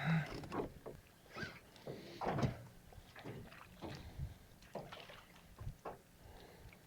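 Irregular knocks, clunks and scrapes of someone moving about and handling gear in a jon boat.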